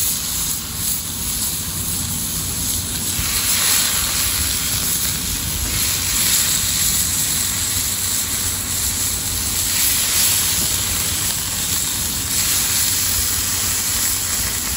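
Chicken, pineapple and vegetable skewers sizzling in oil on a hot flattop griddle: a loud, steady hiss that swells in places as more skewers are laid down.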